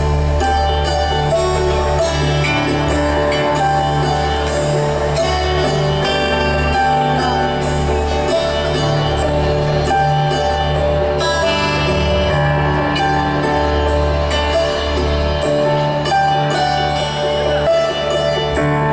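A live band playing Bollywood music, with a drum kit keeping a steady beat over keyboards and a sustained bass line.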